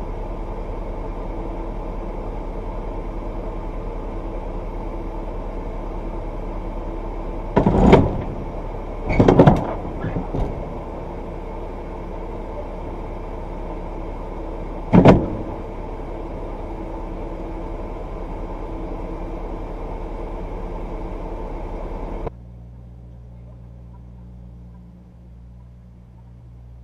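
Semi-truck engine idling steadily, heard from inside the cab, with three short loud noisy bursts about 8, 9.5 and 15 seconds in. About 22 seconds in it gives way to a quieter, lower idle hum.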